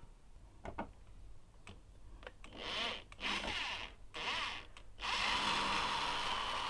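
Handheld power drill or screwdriver run in three short bursts, its motor pitch rising and falling with the trigger, then held for a steady longer run, after a few light clicks.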